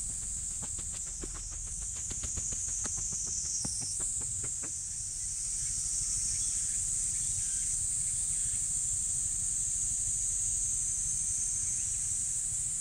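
Footsteps on a path and stairs, a quick run of steps that stops about five seconds in, over a steady high-pitched drone of summer insects in the surrounding woods.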